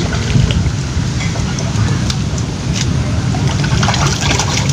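A hooked patin (pangasius catfish) thrashing and splashing at the surface of a pond as it is reeled toward the bank. Bursts of splashing come about two seconds in and again near the end, over a steady low rumble.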